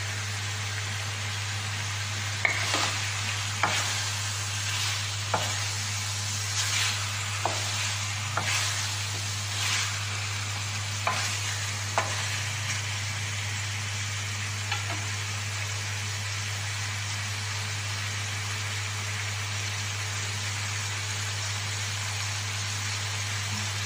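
Chicken pieces sizzling in a wok while a wooden spatula stirs them, with sharp clacks and scrapes of the spatula against the pan through the first half; after that, steady sizzling alone. A steady low hum runs underneath.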